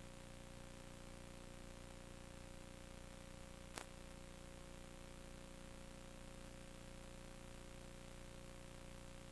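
Steady hiss with a faint constant hum tone, broken by a single sharp click about four seconds in: the recording's own noise floor, with no farm machinery heard.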